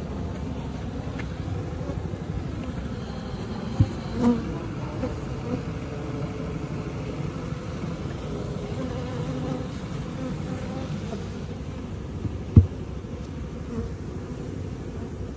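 Honey bee colony humming steadily from an opened hive crowded with bees. A few short thumps break through about four seconds in, and one sharper thump comes about twelve seconds in.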